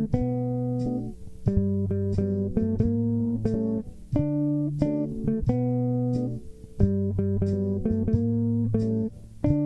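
Guitar music: plucked notes with a bass line in short repeating phrases.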